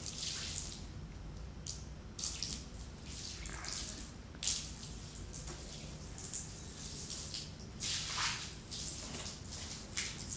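Water splashing in irregular bursts, a few seconds apart.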